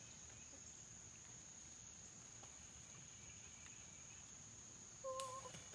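Steady high-pitched drone of insects over otherwise near silence. About five seconds in, a sharp click and a short, faint pitched call.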